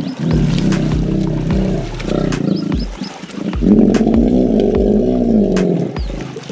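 Hippopotamuses roaring: a string of deep, rumbling calls, the longest and loudest one, rising and falling in pitch, coming a little past halfway. These are the sounds of displeased, aggressive hippos squaring off against each other.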